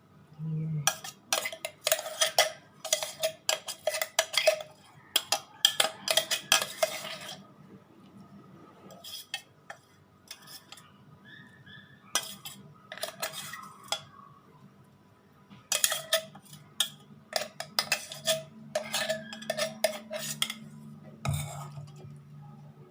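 Utensil scraping and clinking against a mixer-grinder jar as freshly ground ginger paste is cleared out of it, in three spells of quick strokes.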